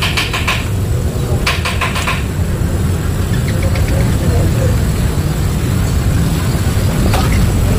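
Steady low mechanical drone, like an engine running, with two short bursts of rapid high-pitched clicking trills in the first couple of seconds.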